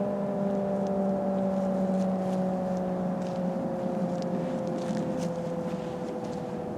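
Federal Signal SD-10 outdoor warning siren winding down at the end of a test, its wailing tone slowly falling in pitch and fading.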